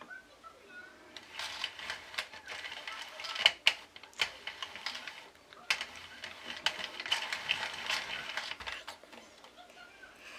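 Sentro 48-needle plastic circular knitting machine being turned by hand: two runs of fast plastic clicking and clattering with a short pause between.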